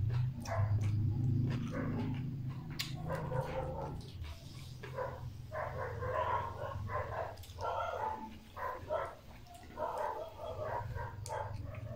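Dogs barking repeatedly in runs of short barks, mostly from about three seconds in, over close clicks and smacks of someone eating with their hands.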